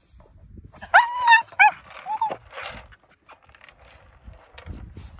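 Cairn terrier giving three short, high-pitched excited yelps in quick succession about a second in, then softer clicks and rustling.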